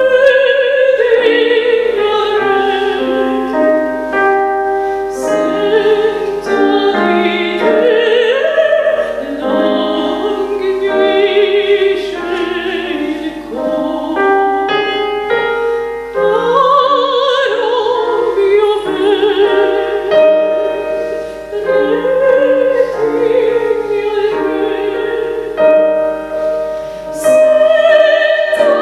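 A woman singing solo in a classical, operatic style with a wide vibrato, accompanied by a Roland FP-4 digital piano.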